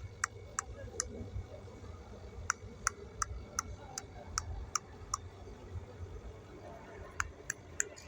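Sharp, evenly spaced clicks, between two and three a second, coming in runs of several with gaps between them, over a low steady rumble.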